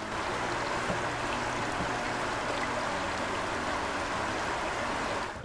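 Stream water running steadily, an even rushing and trickling.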